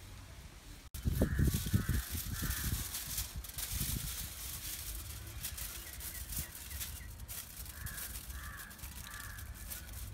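Crows cawing, three caws about a second in and three more near the end, over the continuous crinkling rustle of aluminium foil being unrolled and handled, with dull thumps in the first couple of seconds.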